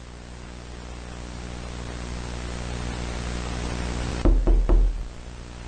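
A low droning hum with hiss swells slowly, then three heavy knocks on a door land close together about four seconds in.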